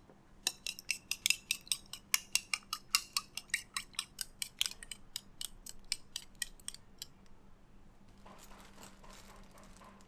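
Food being cut: a fast run of sharp clicks, four or five a second, thinning out after about seven seconds, followed by a soft rustle.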